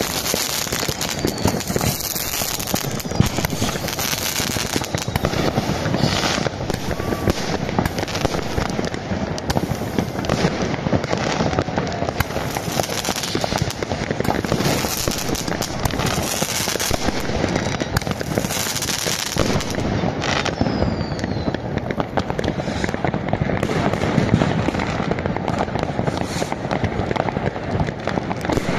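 Many fireworks and firecrackers going off at once: a dense, unbroken crackle of bangs with a couple of faint whistles.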